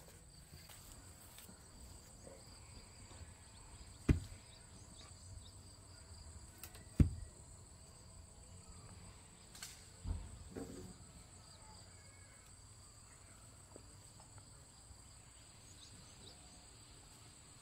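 Three sharp knocks about three seconds apart, the loudest sounds here, over a steady high-pitched insect drone.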